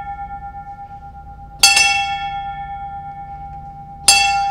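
Brass ship's bell rung by pulling its clapper lanyard. It is struck about one and a half seconds in and again near the end, each stroke a quick double hit. A long, clear ringing tone follows each stroke and slowly dies away.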